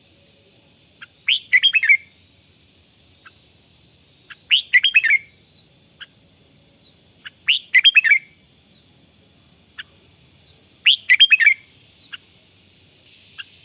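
Red-whiskered bulbul singing short, loud phrases of a few quick notes, one about every three seconds, four in all. A steady high-pitched whine runs underneath.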